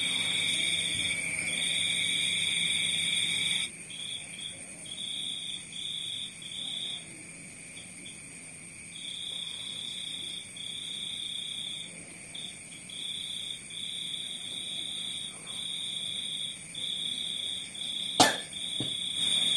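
A high-pitched trill that comes and goes in stretches of half a second to a couple of seconds over a faint steady hiss. A lower steady tone stops suddenly a few seconds in, and there is one sharp click near the end.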